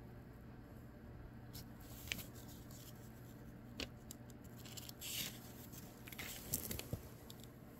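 Pages of an old book being handled: small paper crackles and fingernail clicks, with the rustling swish of a page being turned about five seconds in, then a few more crackles as the new page is smoothed down.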